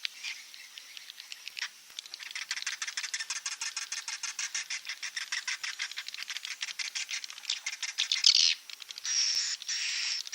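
Swiftlet calls played as a swiftlet-house lure sound: a rapid run of sharp clicking chirps, about ten a second, turning near the end into a steadier high buzzing twitter.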